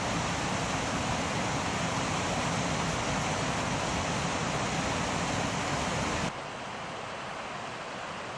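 Rushing mountain water, a steady loud rush; about six seconds in it cuts suddenly to a quieter, thinner rush.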